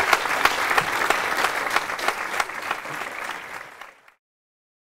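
Audience applauding, fading down and cutting off about four seconds in.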